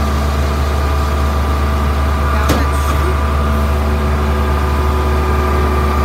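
Concrete pump truck's diesel engine running steadily: a constant low drone with a steady higher tone over it. A single sharp click about two and a half seconds in.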